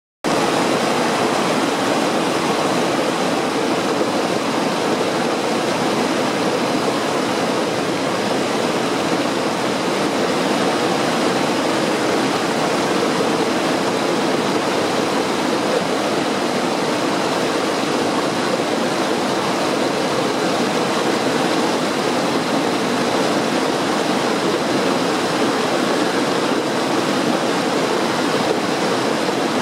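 Shallow river rapids rushing over boulders: a steady, even rush of white water.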